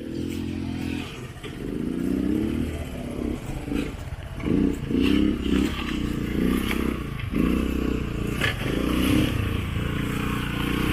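Small motorcycle engine revving in repeated rising surges under load, climbing an off-road track, with occasional knocks and clatter.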